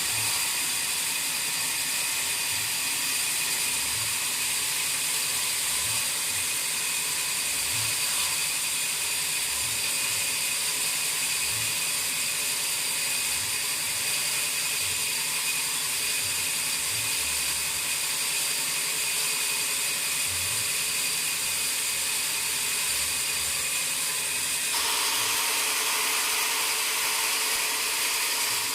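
Sawmill saw running with a steady high-pitched whine, processing mahogany. About 25 seconds in the sound abruptly changes and becomes fuller in the middle range.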